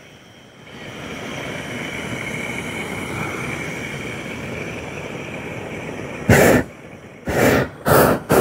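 Hot-air balloon propane burner fired in short blasts: one about six seconds in, then four more in quick succession near the end. Before the blasts, a steady rushing noise.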